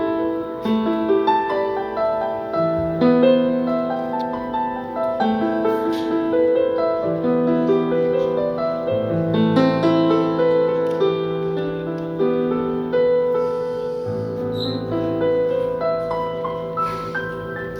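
Keyboard playing a slow passage of held chords under a melody line, the notes overlapping and sustained.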